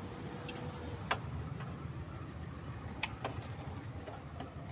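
Pliers snipping and working thin electrical wires, a few sharp clicks about a second or two apart, over a steady low background hum.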